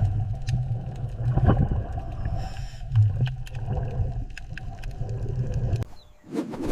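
Sea turtle sound: a low, uneven rumbling that swells and pulses, with a few faint clicks, dropping away about six seconds in.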